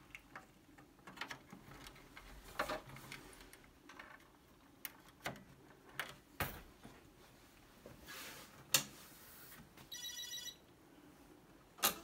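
Light plastic clicks and knocks as a Commodore 1530 Datasette's plug is worked onto the cassette edge connector of a circuit board. A short electronic beep sounds near the end, followed by the sharp clack of the Datasette's rewind key being pressed down.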